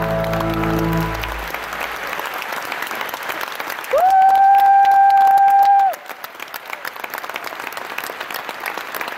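Concert audience applauding as the band's last sustained chord fades out in the first second and a half. About four seconds in, a single steady high note rises in and holds for two seconds over the applause.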